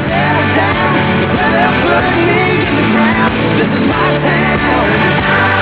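Music: a rock song with a singer's voice.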